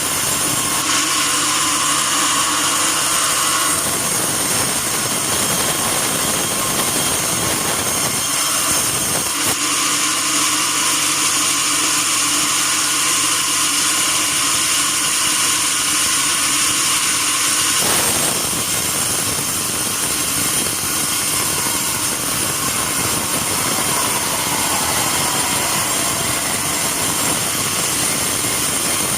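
Sawmill bandsaw running steadily, a loud machine noise with a thin high tone; its deeper hum drops out and returns several times, about 1, 4, 9 and 18 seconds in.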